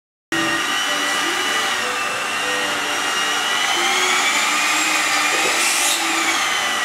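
Electric hand mixer running steadily, its beaters whisking fritter batter in a plastic bowl; the motor's whine drifts slightly up and down in pitch. It starts abruptly just after the start.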